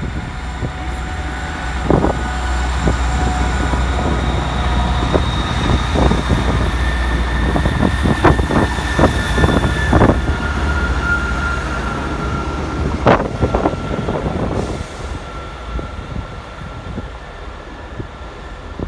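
A GWR Class 158 diesel multiple unit running past on the curved platform line, with a steady low diesel drone and clanks from the wheels over the track. A high steady wheel squeal joins from about ten seconds in, typical of wheel flanges on a curve. The sound fades near the end as the train draws away.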